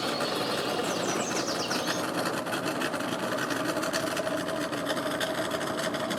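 Boat engine idling steadily, with a faint steady hum, under a broad rushing background noise.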